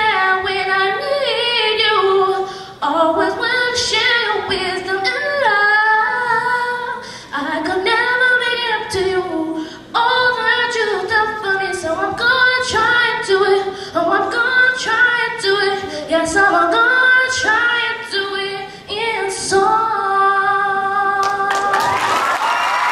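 A young solo singer singing unaccompanied into a handheld microphone, the melody sliding through quick runs up and down in pitch. The singer holds a long final note near the end, and applause breaks out just as it finishes.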